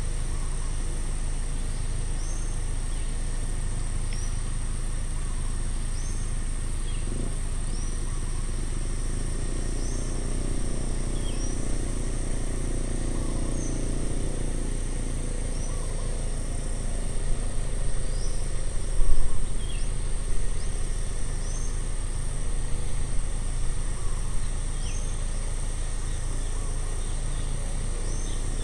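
A bird gives a short high chirp every second or two over a steady high insect whine and a low outdoor rumble. A low swell rises and fades in the middle, and a few louder knocks come past the middle.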